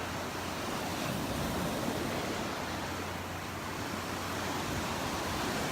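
Ocean surf washing onto a sandy beach: a steady rush of breaking waves that swells and eases, with some wind.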